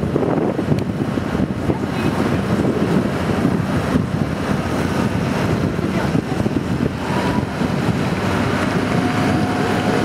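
Sightseeing boat under way on a river: a steady low engine-and-water noise with wind on the microphone.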